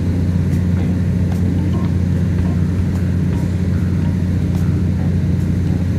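Loud, steady low mechanical hum with no change in level, and a few faint knocks of a basketball bouncing on the court.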